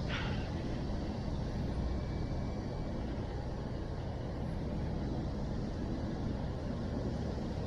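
Steady low rumbling noise with no distinct pitch, holding even throughout, with a brief higher rustle right at the start.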